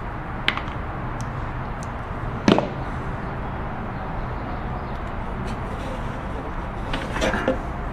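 Wire cutters snipping through an old plastic-insulated sewing-machine cord: one sharp snap about two and a half seconds in, with a lighter click about half a second in, over a steady background hiss.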